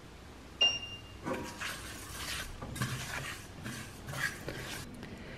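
Silicone spatula stirring and scraping sesame seeds around a dry nonstick wok in repeated strokes as the seeds toast without oil. About half a second in there is a sharp knock followed by a brief high ringing tone.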